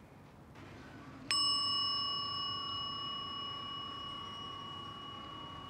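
A small Buddhist altar bowl bell (rin) struck once about a second in, then ringing on with a long, slow fade.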